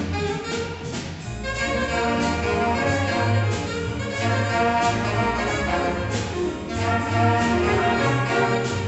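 Jazz big band playing a blues: saxophones, trombones and trumpets over upright bass, piano and guitar. The ensemble grows fuller about a second and a half in.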